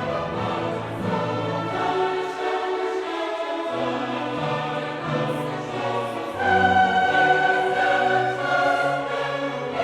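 Background music with a choir singing long held notes; it gets louder about two-thirds of the way through.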